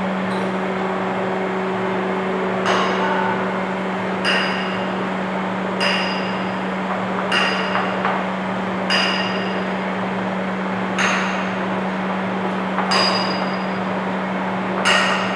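Steady electric hum of the hydraulic slab trolley's power pack running while the roller bed tilts, with about eight sharp metallic clinks that ring briefly, one every one and a half to two seconds.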